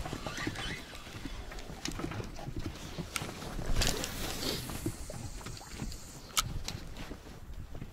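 Scattered light clicks and knocks of handling, with a few sharper taps about three, four and six seconds in.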